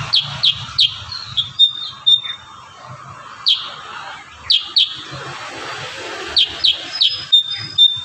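A caged kurincang (black-crested bulbul) calling in quick runs of short, sharp, downward-sweeping notes with a few brief held whistles. Three fast notes open it, a second run comes about three and a half seconds in, and a denser run starts near the end.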